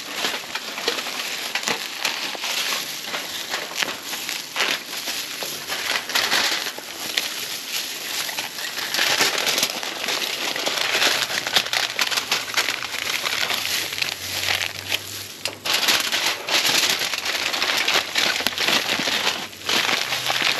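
Seasoned fish frying in hot oil in a pan, a dense crackling sizzle that swells and eases.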